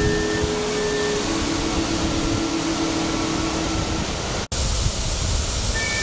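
Steady rush of water pouring over rocks in a mountain stream and waterfall. The sound cuts out for an instant about four and a half seconds in, then the rush of water carries on.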